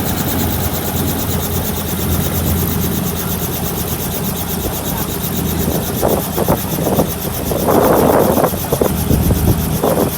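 Helicopter flying overhead: a steady, loud rotor and engine drone with a fast even beat from the blades. Past the middle, several brief louder bursts of noise break over it.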